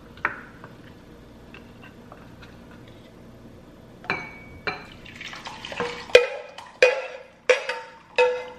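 Kitchen utensil striking and scraping against cookware: a few light clicks, then from about halfway a run of sharp clinks roughly every 0.7 s, each ringing briefly like metal or ceramic.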